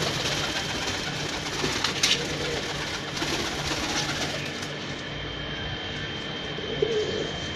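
Domestic pigeons cooing, with a brief flurry of wing flaps partway through as one pigeon flies out of the loft onto the ledge.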